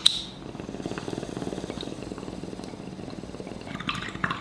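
A lighter clicks at the very start, then water bubbles in a bong as it is inhaled through, a steady rapid gurgle.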